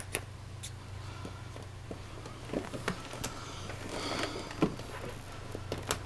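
Rubber buckle overshoes being worked on and fastened: scattered sharp clicks of the metal buckles and rubber rubbing and scraping, ending in a thump about two-thirds of the way through.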